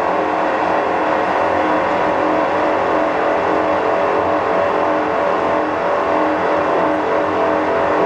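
CNC pipe threading lathe running steadily: a dense machine noise with several steady hums.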